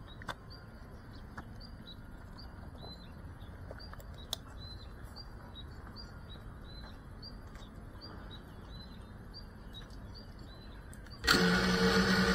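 A bird chirping over and over at an even pace over faint outdoor background. About eleven seconds in, the Geprc FPV drone's motors start and spin at idle with a steady hum, close to the drone-mounted microphone.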